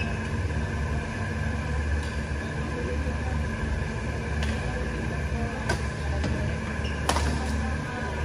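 Badminton rally: a few sharp racket hits on the shuttlecock, about a second and a half apart in the second half, the last one the loudest. Under them is a steady low hum.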